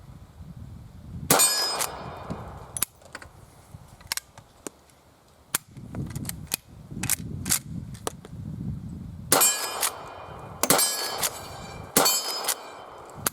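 Rossi R92 lever-action rifle firing .38 Special rounds at a steel plate target. Each shot is followed by the ring of the struck steel, with lighter clacks of the lever being worked in between. One loud shot comes about a second in, and three more follow in quick succession near the end.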